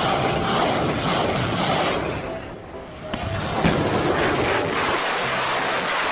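Truck-mounted multiple rocket launchers firing a salvo: a dense, continuous rush of rockets leaving the tubes, easing off briefly a little past two seconds in and building up again about three seconds in.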